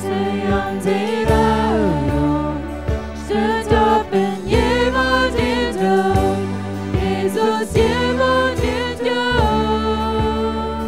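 A Christian hymn: voices singing held, wavering notes over a steady instrumental accompaniment.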